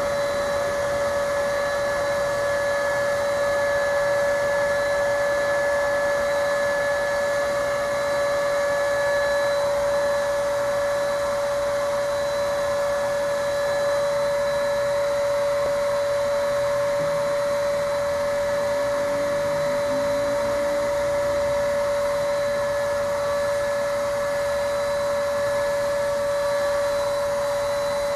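Electric motor of spray-painting equipment running steadily with a constant high whine over a rushing hiss of air, like a blower.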